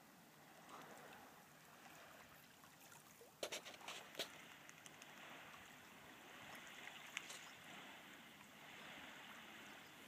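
Faint trickle of shallow water running over beach rocks, with a few sharp clicks about three and a half to four seconds in.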